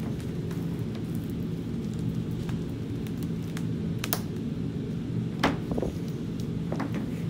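A heavy EPDM rubber roof membrane and the OSB board bonded to it being handled, with a few sharp clicks and knocks over a steady low rumble. The rubber sheet flexes and the board lifts and drops, the board still held by the spray contact adhesive.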